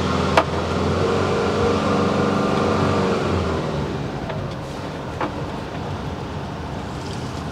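Motorhome engine running as the vehicle moves off, heard from inside the cab, with a sharp click about half a second in and a softer one near five seconds. After about three and a half seconds the engine note drops back and road noise takes over.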